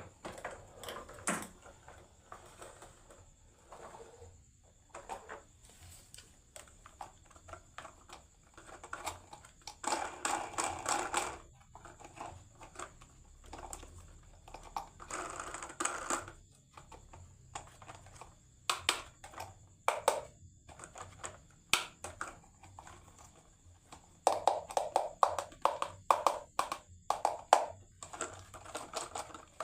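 Marbles rolling and clacking down a toy marble run: a string of sharp clicks and knocks, with stretches of continuous rolling rattle about ten seconds in and again around fifteen seconds, and a busy clatter of rapid hits near the end.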